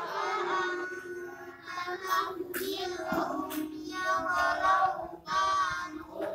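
A child's voice chanting Qur'anic recitation in a melodic, drawn-out style, in phrases broken by short pauses.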